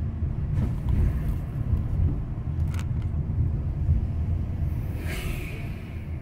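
Car driving at low speed: a steady low rumble of road and engine noise, with a few faint clicks and a brief hiss about five seconds in.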